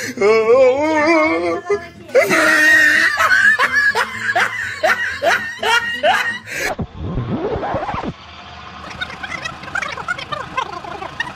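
Two girls laughing hard in quick repeated bursts, then quieter laughing and chatter.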